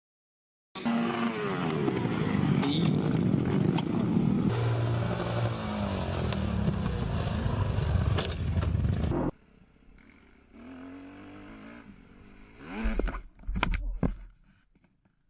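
Motorcycle engines revving loudly, the pitch rising and falling, as dirt bikes race and crash. After a sudden cut a quieter engine runs, then a few sharp crashes and scraping near the end as a bike goes down in the dirt.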